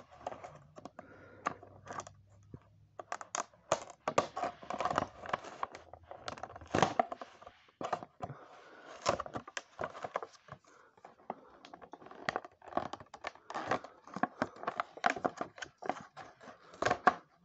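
Clear plastic blister packaging crackling and crinkling, with scratching and tearing as it is worked off its cardboard backing card by hand. Irregular crackles and clicks come in clusters.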